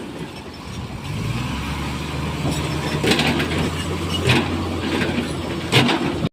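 Heavy diesel earthmoving machinery running steadily at a low drone, with three short clattering knocks of metal or material striking.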